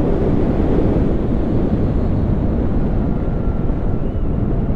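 Steady wind rush and road rumble from a Zero SR/S electric motorcycle being ridden, picked up by the onboard microphone, with a faint thin whine in the background.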